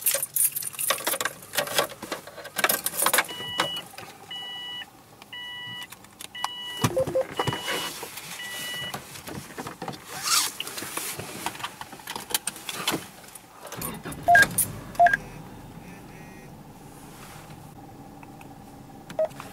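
Rustling and knocking of a camera being wedged against a car's sun visor, broken by a car's warning chime beeping about six times in a steady row. Later come two sharp clicks, then a steady low hum inside the car.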